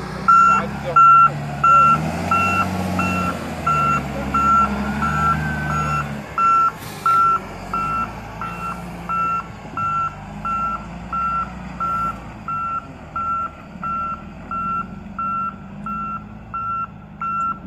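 Reversing alarm of heavy road machinery beeping steadily, about one and a half beeps a second, over a diesel engine running; the engine note rises and falls in the first few seconds, then settles.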